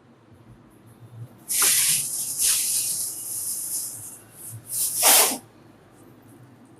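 A spraying hiss: one long spray of about two and a half seconds, then two short spurts.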